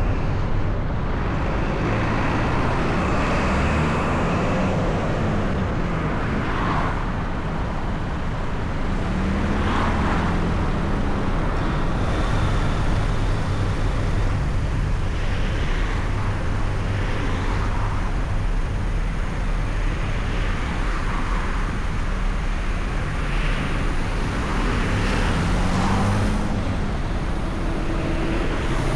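A car driving in slow traffic: steady engine and road noise, with the engine note rising and falling a few times. Whooshing swells of noise come and go every few seconds.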